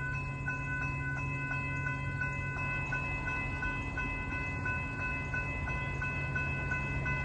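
Railroad grade-crossing warning bell ringing in quick, evenly spaced dings, signalling that the crossing has been activated for an approaching train, over a low steady drone.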